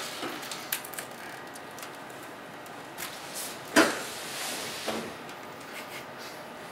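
Scuffs, light knocks and rustling of clothing as a man squeezes through a person-shaped hole cut in a drywall partition, with one louder noise about four seconds in.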